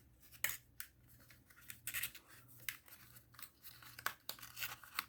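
Cardboard Happy Meal box being opened at the side and folded into shape: irregular scrapes and rustles of paperboard with a few sharp clicks.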